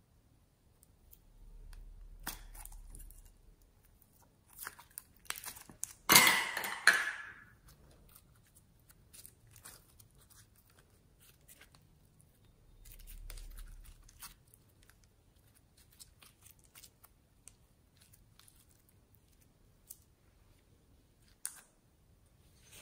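Glittery slime being squeezed out of a plastic bottle and worked by hand: scattered sticky crackles, clicks and pops, with one loud, longer crackling burst about six seconds in.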